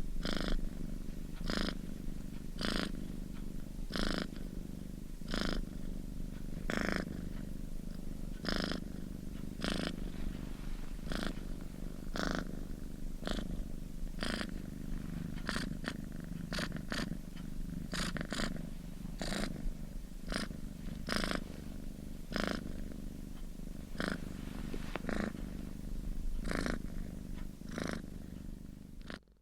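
Domestic cat purring steadily, a low continuous rumble rising and falling with its breathing, slightly more than once a second.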